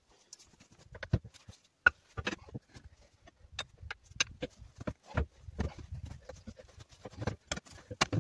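Irregular knocks and clanks of steel tyre irons against a tractor's steel wheel rim while a tyre is levered onto it, a sharp strike every half second or so.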